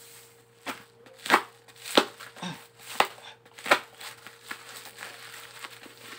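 Plastic packaging being torn and crumpled open by hand: crinkling broken by several sharp snaps, about five loud ones in the first four seconds and smaller ones after.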